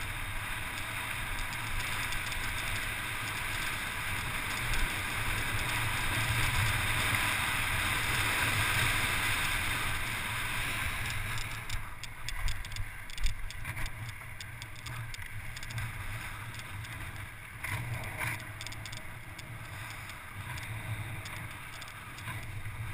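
Motorcycle engine running at a steady low speed on a loose gravel track, with gravel and rattles from the rough surface and a rushing hiss of wind and road noise that drops away about halfway through.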